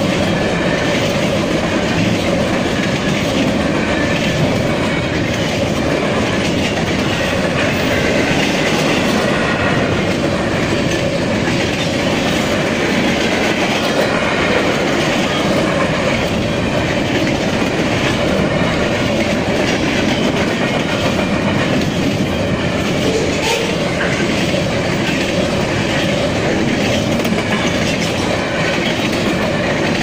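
Freight train cars rolling past: a steady rumble of steel wheels on rail with a repeated clickety-clack.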